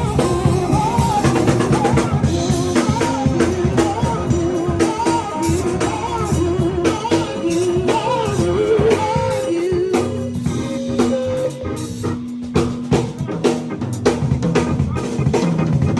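Live band playing a gospel tune: drum kit, bass and keyboard under a wavering, bending lead guitar melody. About ten seconds in the melody drops away, leaving a held keyboard note over the drums.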